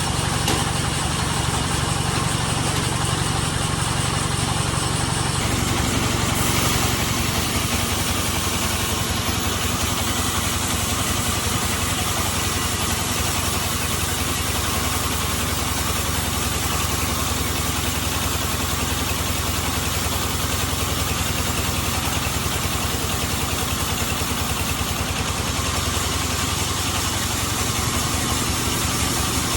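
Sawmill band saw machinery running steadily, with the drone of its engine. The sound changes about five and a half seconds in, then carries on steadily.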